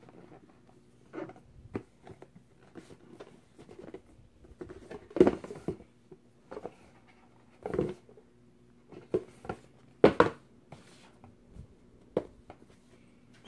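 Cardboard laptop box being handled: irregular scrapes, taps and rustles as the black outer sleeve is slid off the red inner box, with louder knocks about five, eight and ten seconds in.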